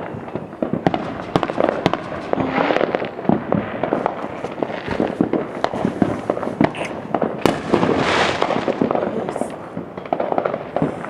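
Fireworks going off close by: a rapid, continuous string of sharp cracks and pops, with a brief hiss about eight seconds in.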